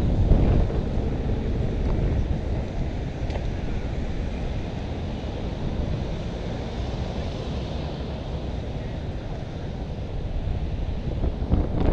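Wind buffeting a helmet-mounted camera's microphone while cycling: a low rumble that eases off in the middle and picks up again near the end.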